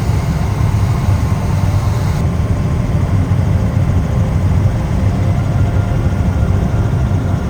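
A small tour helicopter's engine and rotor running in steady flight, heard from inside the cabin as a loud, even low rumble.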